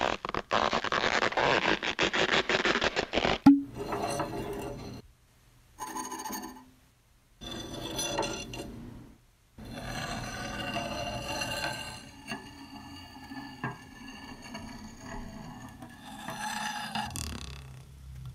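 Stop-motion sound effects for an old chisel working itself loose from its handle. A rapid rattle runs for about three and a half seconds and ends in a sharp pop. Then come several short, pitched scraping sounds with pauses between them, and a rising sweep near the end.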